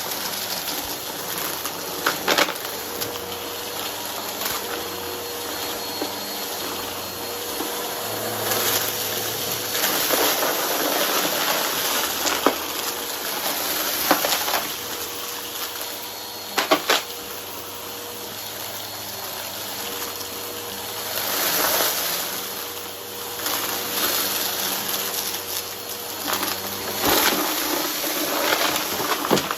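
Vacuum cleaner with a brush roll running steadily while sucking up a pile of crunchy debris. Its note swells and dips as it is pushed back and forth. Sharp clicks and crackles come a few times as pieces are pulled in.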